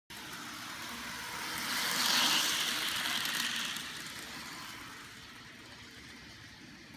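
HO scale Goodyear Wingfoot 100 model train running fast along the track, its motor and wheels on the rails making a steady whirring noise that grows louder as it passes close by, peaking about two to three seconds in, then fades as it moves away.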